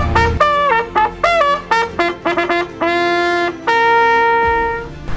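Small brass hunting horn blowing a hunting signal at the start of a hunt. It plays a run of short notes that jump between a few pitches, some sliding down, and ends on one long held note that fades out just before the end.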